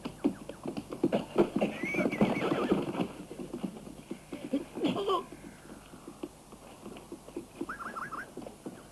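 Horse hooves clattering fast over forest ground for about three seconds, then fading. A horse neighs loudly about five seconds in.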